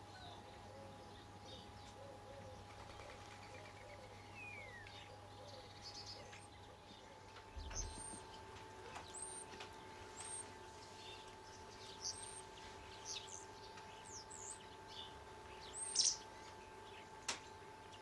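Small garden songbirds calling: scattered short, high chirps and tweets, more frequent in the second half, with one falling whistle about four seconds in. A faint steady hum runs underneath.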